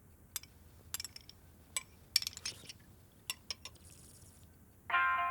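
Cutlery and crockery clinking: a scattered run of light, sharp clinks, like forks and knives against plates during a meal. Near the end, plucked-string music starts.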